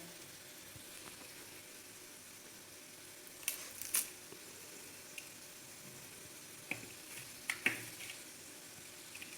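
Faint steady hiss with a few short, light clicks and taps scattered through, two close together about three and a half seconds in and two more near the end.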